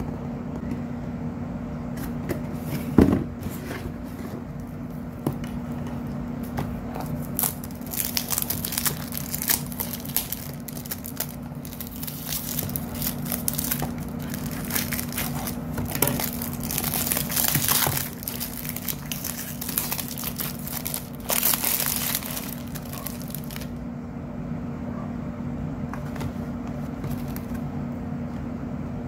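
Clear cellophane shrink-wrap on a cosmetics box crinkling and tearing in irregular crackles as it is cut with scissors and peeled off. A single knock comes about three seconds in, and a steady low hum runs underneath.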